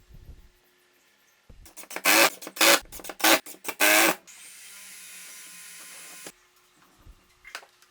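Small electric motor, as of a power tool, run in about five short loud bursts, then a quieter steady hiss that cuts off suddenly about six seconds in.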